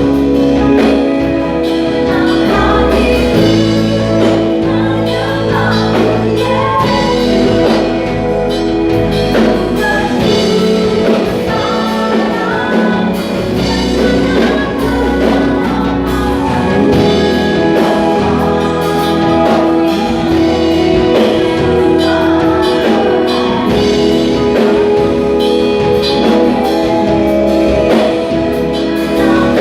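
Worship band playing a praise song with singing over sustained keys, bass and drums.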